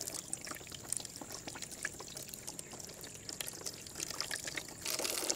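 A thin stream of water pouring from a spout over hands as quail eggs are rubbed clean under it, a steady trickle and splash with faint clicks as the eggs are handled.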